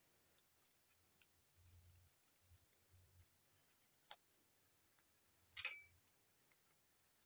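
Faint clicks of a plastic ring hanger being handled while the clips holding its hook piece are opened, with a sharp click about four seconds in and a louder short clatter of plastic a second and a half later.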